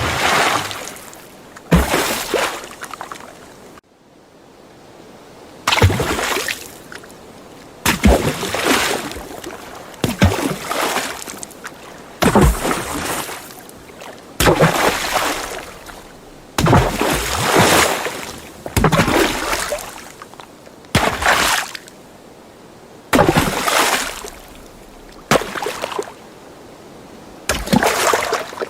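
A series of separate water splashes, one about every two seconds, each a sharp impact into water followed by a short slosh and dribble that dies away; some are heavier than others.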